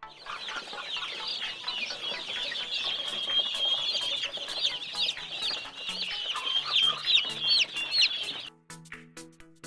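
A crowd of day-old Kroiler chicks peeping, many high chirps overlapping without a break. It cuts off suddenly near the end, giving way to plinking background music.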